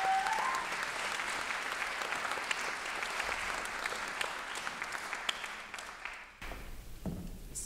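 Audience applauding, many hands clapping steadily, with a brief rising cheer right at the start. The applause cuts off abruptly about six seconds in, leaving a quiet room.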